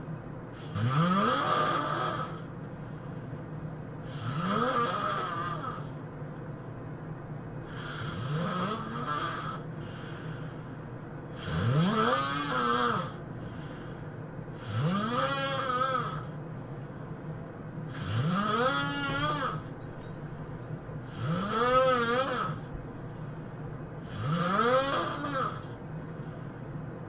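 A person snoring in a regular rhythm, eight snores about three and a half seconds apart. Each snore carries a pitched tone that rises and then curves back down.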